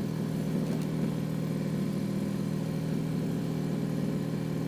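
An engine on a fishing boat running steadily, a constant low hum with no change in speed.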